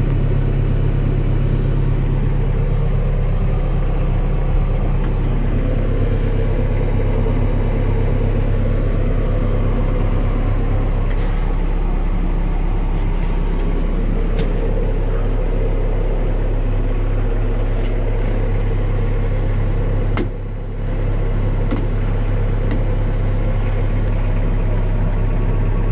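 Diesel engine of a Cat 430D loader backhoe running steadily at idle, with a brief drop in level about twenty seconds in and a few light clicks around it.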